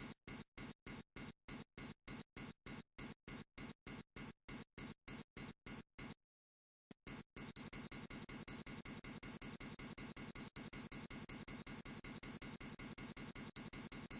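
Rapid, high-pitched electronic beeping, evenly spaced at about four beeps a second. It stops for under a second about six seconds in, then resumes faster at about five beeps a second.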